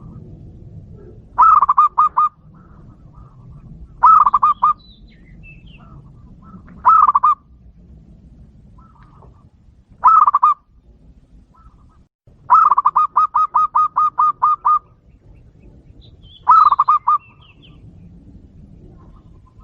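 Zebra dove (perkutut) cooing in six bursts of rapid staccato notes. The fifth burst is a longer run of about a dozen notes lasting about two seconds, over a faint low background hum.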